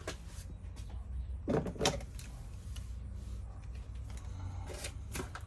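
Sheets of sound deadening mat being handled and fitted into a van's sheet-metal body panel: scattered light clicks and rustles, with a louder pair of knocks about one and a half seconds in, over a steady low hum.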